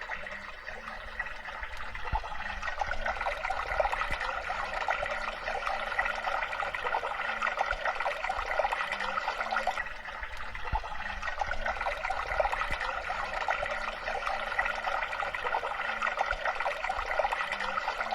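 Small waterfall spilling steadily into a pond, an unbroken splashing trickle of water.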